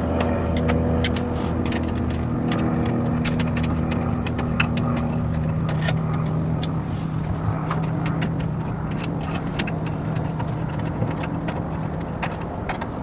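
Pickup truck running, a steady engine hum with many small scattered clicks over it.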